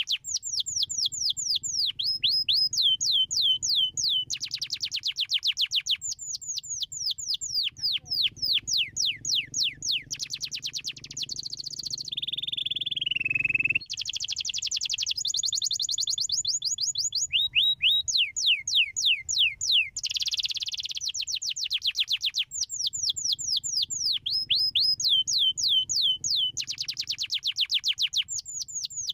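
Domestic canary singing a long, continuous song made of rapid trills: runs of fast, evenly repeated downward-sweeping notes that change pattern every few seconds, with one drawn-out falling whistle about halfway through.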